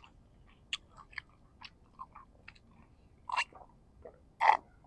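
Close-up mouth sounds of chewing springy beef balls, heard through a lapel microphone: small wet clicks and smacks, a few a second. Near the end comes a louder slurp from a sip through a straw.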